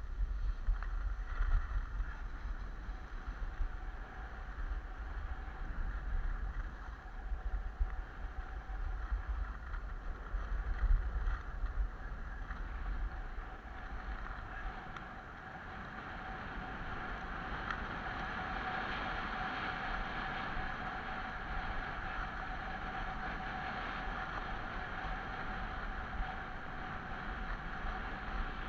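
Wind buffeting the microphone and skis hissing over groomed snow during a fast downhill run. A gusty low rumble leads in the first half; from about halfway a steadier hiss takes over as the run smooths out.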